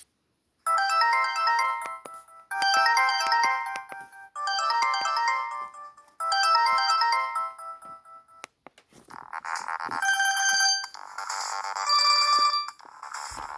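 A Samsung GT-E1272 ringtone playing through a Newmind F15 flip phone's small speaker: a short bright melody repeated four times, then a busier, different section from about nine seconds in.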